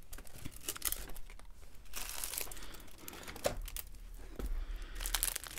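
A large 60 by 80 diamond painting canvas and its plastic cover film rustling and crinkling as it is handled and turned over, in irregular bursts that are busiest about two seconds in and again near the end.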